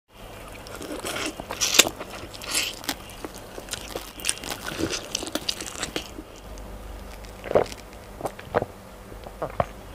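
Close-miked eating sounds: a person biting and chewing chicken adobo, a run of sticky clicks and smacks over the first six seconds. Near the end come a few separate swallowing sounds as water is drunk from a glass.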